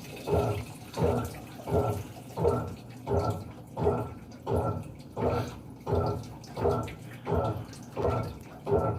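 Panasonic 14 kg washing machine agitating during its rinse: water and clothes sloshing in regular back-and-forth strokes, about every 0.7 seconds. This rinse agitation loosens the clothes so the fabric softener takes better.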